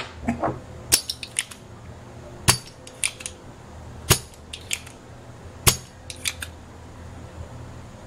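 Sharp clicks and taps of metal hand tools against a circuit board and the pins of a surface-mount driver chip while one of its legs is pried up. There are four louder clicks about a second and a half apart, each followed by a few lighter ones.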